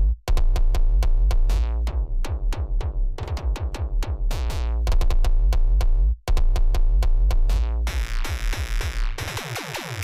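Fast, dense electronic dance music from a live set: rapid drum-machine hits over heavy bass, with falling synth sweeps. The whole mix cuts out for a split second just after the start and again about six seconds in.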